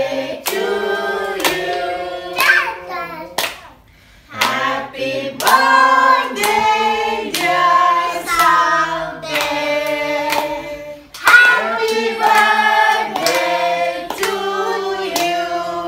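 A small group of adults and children singing a birthday song together, clapping along in time about once a second. A short pause comes about four seconds in.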